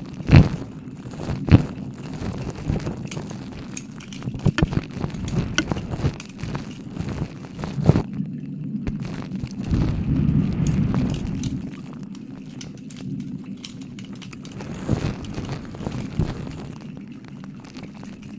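Close-miked ASMR wet mouth sounds: licking with an irregular run of wet clicks and crackles, some louder pops among them.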